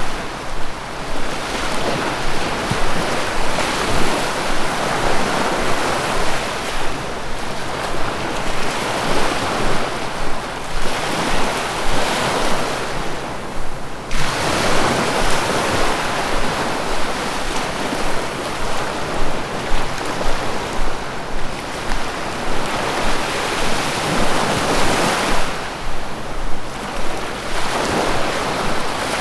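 Sea waves surging and washing in and out, a continuous rushing noise that swells and ebbs every few seconds; a fresh wave breaks suddenly about halfway through.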